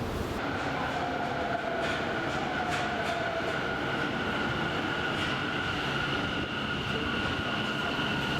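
Subway train running, with a steady high electric whine and a lower tone that slowly falls in pitch over a noisy rumble.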